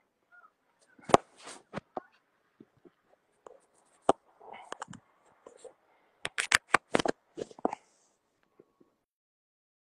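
Close handling noise on a phone's microphone: scattered sharp clicks and knocks, with a quick cluster of them about six to eight seconds in.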